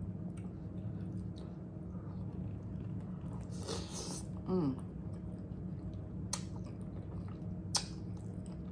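Ramen noodles being slurped in one loud airy draw about three and a half seconds in, then chewed, with a short hum of the voice just after the slurp. Two sharp clicks come near the end.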